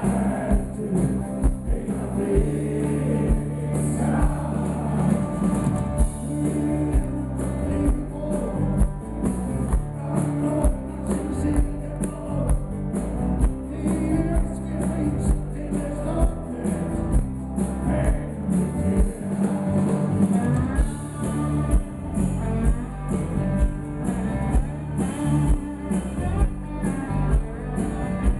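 Live rock band playing a song through the PA, with a steady drum beat, electric and acoustic guitars and keyboard, and a man singing.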